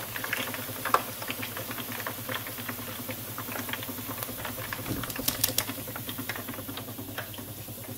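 Hot oil in a deep fryer crackling and popping, irregularly and several times a second, under a wire basket of freshly fried chicken wings, with a steady low hum underneath. A few sharper clicks come about five seconds in.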